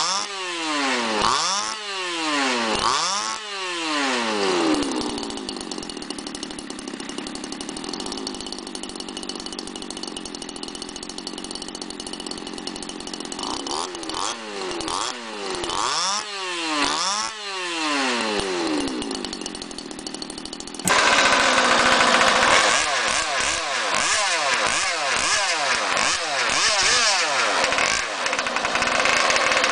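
Small 25cc two-stroke Supermod petrol engine with its throttle blipped by hand: about four quick revs rising and falling, a steady idle, then another run of revs. About two-thirds of the way through it gives way abruptly to a louder 27cc engine in an RC wood-hull boat, running and revving repeatedly.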